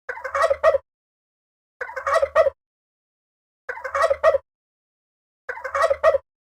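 Domestic turkey calling: four identical short bursts of quick pulsed notes, one about every two seconds, with silence between.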